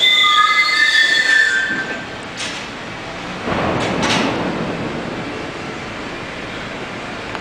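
New York City subway train pulling slowly along the platform and braking toward a stop, its steel wheels squealing with several high tones for the first couple of seconds over the rumble of the cars. The rail noise then settles, with a louder swell of rumbling about halfway through.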